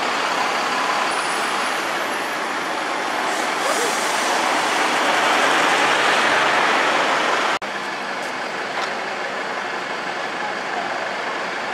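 City street traffic noise as an ADL electric hybrid double-decker bus drives off right past the microphone. About two-thirds of the way through it cuts off abruptly, and slightly quieter traffic noise follows.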